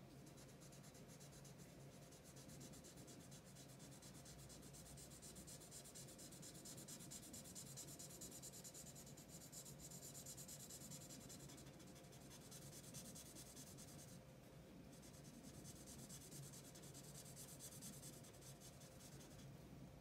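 Faint, rapid strokes of a black marker tip scratching back and forth on paper as a large area is filled in, easing off for a few seconds a little past the middle. A faint steady hum sits underneath.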